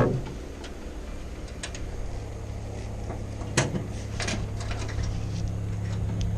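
A motor running steadily with a low hum, with a few sharp knocks and clunks, the loudest about three and a half seconds in.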